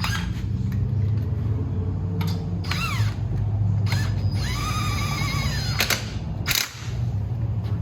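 Power tool whining in two short runs, with sharp clicks between, over a steady low hum, as lug nuts are run onto a wheel.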